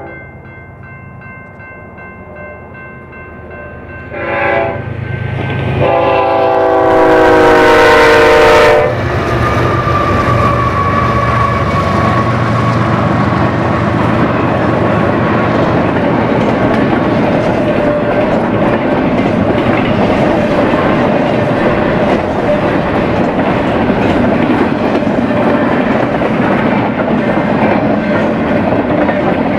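BNSF freight locomotive horn: a short blast, then a loud longer blast whose pitch drops at the end as the engine passes, followed by the freight cars rolling by with steady wheel rumble and clatter.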